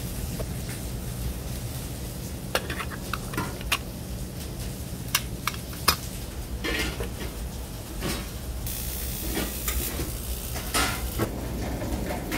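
Restaurant kitchen cooking: metal utensils clink and scrape against pans and dishes while food sizzles, with a louder spell of hissing about nine seconds in, over a steady low hum.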